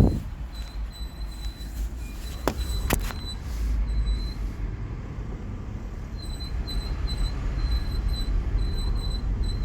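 Thin, high-pitched squeal from the front wheel of a 2007 Toyota Prius rolling at walking pace with the brakes off. It chirps in rapid repeating pulses, drops out for a couple of seconds and comes back, over a low rumble. A garage put it down to the front brake discs and pads, but it does not happen when braking. A thump at the start and two sharp clicks half a second apart come through as well.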